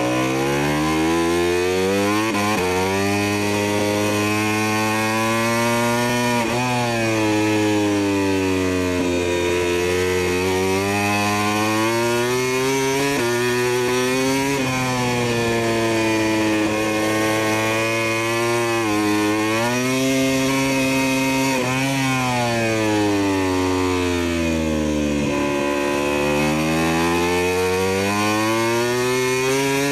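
Big-bike engine sound effect, a loud buzzing motorcycle engine note that keeps rising and falling in pitch, with sudden drops every few seconds like revving up through the gears.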